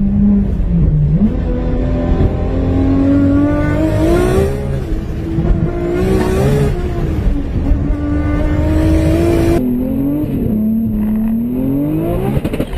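Turbocharged Toyota 2JZ inline-six in a tuned Supra accelerating hard, heard from inside the car: the engine note climbs and drops at several gear changes. Near the end, after a cut, another car's engine revs up through a shift.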